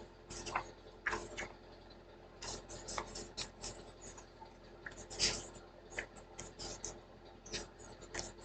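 Scattered light clicks and scratches of something being handled close to the microphone, irregular and soft, with a sharper one about five seconds in.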